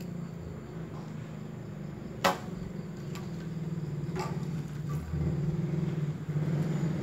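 Thin PVC electrical conduit being cut into stick lengths by hand, giving two sharp cracks, the louder about two seconds in and a lighter one about four seconds in. A steady low hum runs underneath.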